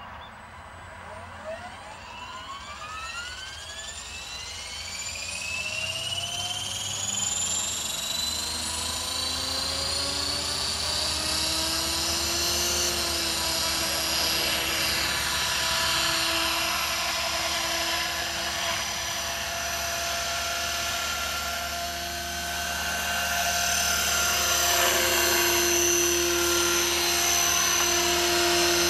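Align T-Rex 500 electric RC helicopter spooling up: the brushless motor and gear whine rises steadily in pitch for about ten seconds, then holds a steady high whine with rotor noise as the helicopter lifts off and flies.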